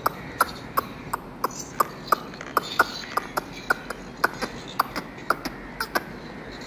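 A rapid run of short, sharp clicks, about three to four a second, that stops about six seconds in.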